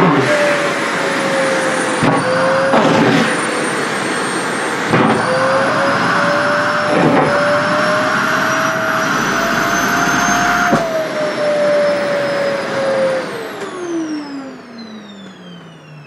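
SHARP EC-KP7F-A canister vacuum cleaner running with a thin cotton dress sucked into its nozzle, its motor whine wavering in pitch, with brief bursts of fabric flapping and rustling in the airflow. About thirteen seconds in the motor winds down, its whine falling steadily in pitch and fading.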